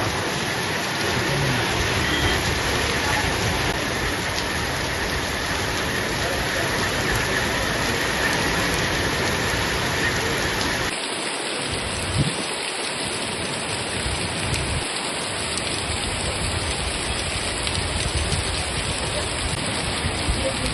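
Heavy rain pouring down, a steady, even hiss of water on surfaces; about eleven seconds in the sound changes abruptly and drops a little in level.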